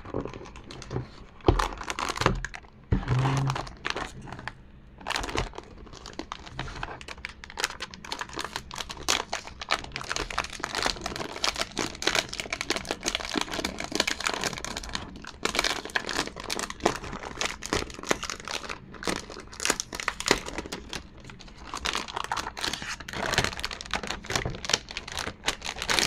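Plastic packaging crinkling and rustling almost continuously as a boxed mechanical keyboard is unpacked, with a few thumps in the first five seconds.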